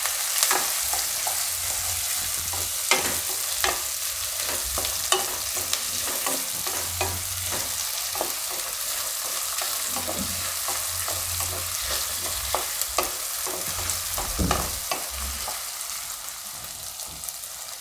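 Chopped onion, garlic and ginger sizzling in hot oil in a kadhai, stirred with a spatula that scrapes and taps against the pan again and again.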